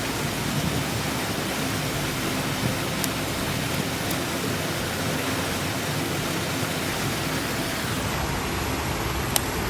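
Water rushing steadily in a river, a continuous even noise with a few faint ticks.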